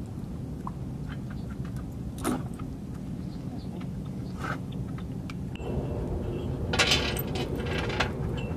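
Dog collar tags jingling and clinking in scattered clicks as a dog drinks from a water bowl, over a steady low rumble. A low hum rises about two-thirds of the way in, and a quick cluster of clinks comes near the end.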